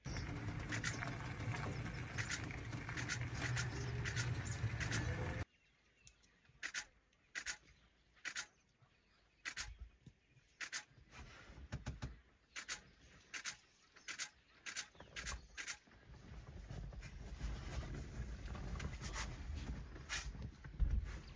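African elephants feeding in grass: irregular sharp crunching and tearing sounds, spaced about half a second to a second apart, over a steady low rumble that stops abruptly about five seconds in and comes back near the end.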